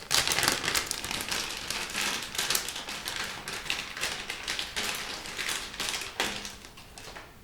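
Plastic packaging crinkling and crackling as a board-game miniature is unwrapped and handled, a dense run of small crackles that dies away about six seconds in.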